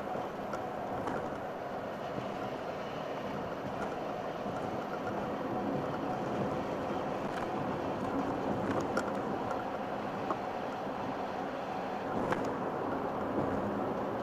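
Steady road and engine noise heard inside a moving car's cabin, with a few light clicks about seven, nine and twelve seconds in.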